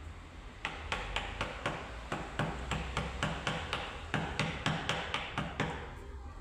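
A mallet tapping a carving chisel into wood in a quick, even rhythm of about four strikes a second. The tapping starts under a second in and stops near the end.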